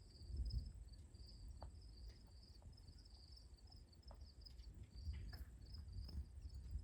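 Faint crickets chirping in a steady, rapidly pulsing trill, with a low rumble underneath.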